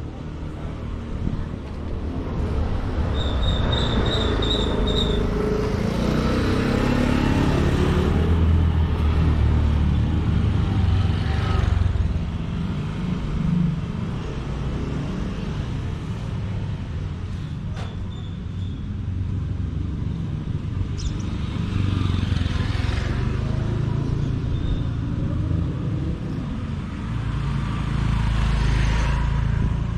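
Street traffic: cars and motorcycles passing one after another over a steady low rumble, growing louder as each goes by. A quick run of about six short high beeps sounds a few seconds in.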